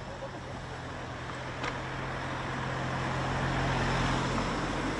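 A car engine running close by, steady and getting louder over the first four seconds, with one sharp click about one and a half seconds in.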